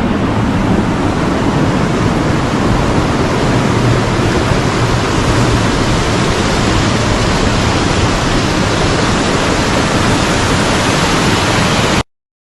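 A waterfall rushing, a loud, steady roar of falling water that cuts off abruptly near the end.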